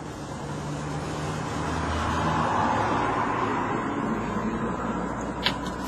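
A rushing noise that swells to a peak about halfway through and then fades, like a road vehicle passing by, with two sharp clicks near the end.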